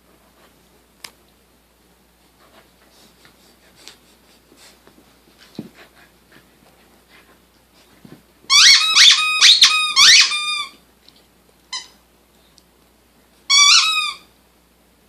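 A rubber squeaky dog toy squeaked in a quick loud run of about eight squeaks beginning about halfway through, then one short squeak, and a final burst of squeaks near the end. Soft clicks and rustles come before the squeaks.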